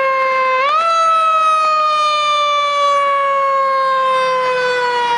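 Fire truck siren sounding one long tone that sinks slowly in pitch, jumps back up quickly a little under a second in, then sinks slowly again.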